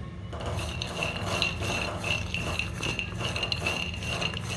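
Raw peanuts being stirred in a nonstick kadhai with a silicone spatula, the nuts clicking and rattling against the pan as they dry-roast.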